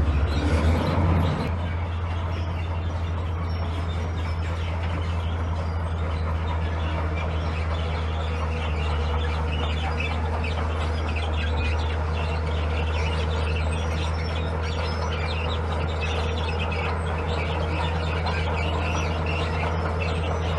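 Diesel engine of heavy earthmoving machinery running steadily, a constant low hum, louder for the first second or so, with birds chirping over it.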